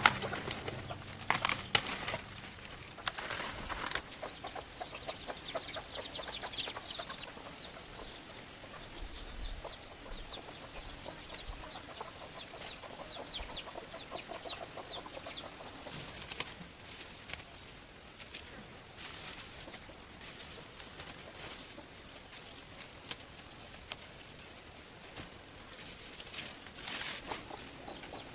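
Chickens clucking in a farmyard, with a long run of quick, short high chirps over several seconds and a few sharp knocks or wing flaps. A steady high whine sits underneath.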